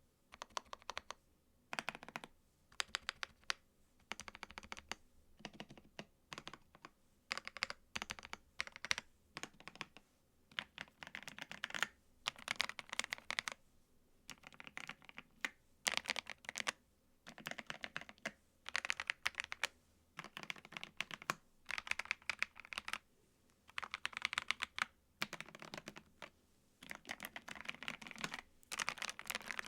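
Typing on a thocky mechanical keyboard with PBT keycaps: runs of rapid keystrokes, each a second or two long, broken by short pauses.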